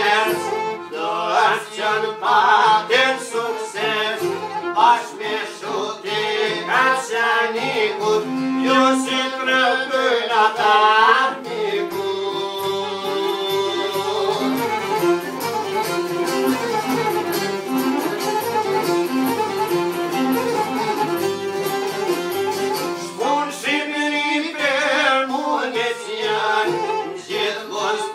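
A song with singing over violin and other instruments. Roughly a third of the way in, the voice drops out for an instrumental passage, and the singing comes back near the end.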